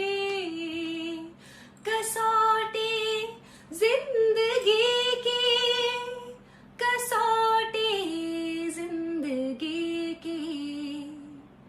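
A woman singing a Hindi television serial's title song in her own voice, in long held phrases with short breaths between them, the last phrase fading out near the end.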